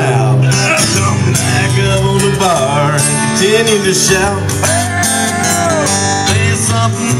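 Live guitar music played through a small PA speaker, with a melody line that slides up and down in pitch.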